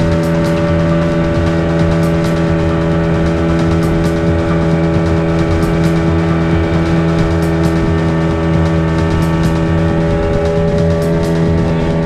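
Speedboat engine running steadily at cruising speed, a constant drone that holds one pitch, with the hull rushing through the water.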